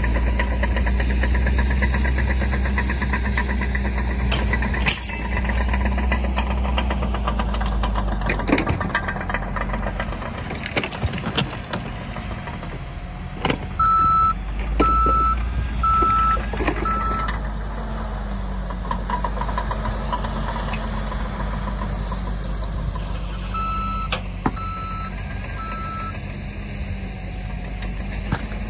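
Caterpillar crawler dozer's diesel engine running steadily, with occasional metal knocks and clanks. Its reversing alarm beeps about once a second: four beeps around the middle, then three more later on.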